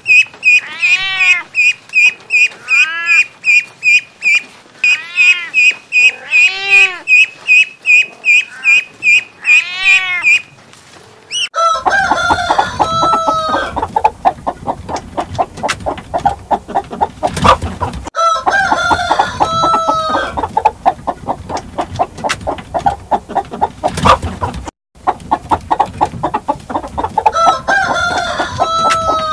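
Ducklings peeping rapidly and steadily, with a few longer rising-and-falling calls among them. After about twelve seconds this gives way to chickens clucking, with a rooster crowing three times.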